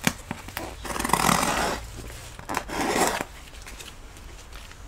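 Cardboard shipping box being opened by hand: cardboard flaps scraping and rubbing in two strokes, the first about a second in and the second around three seconds in, with a few light knocks.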